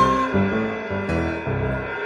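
Instrumental accompaniment music: low bass notes and chords alternating about twice a second. A high held whistle-like tone stops just after the start.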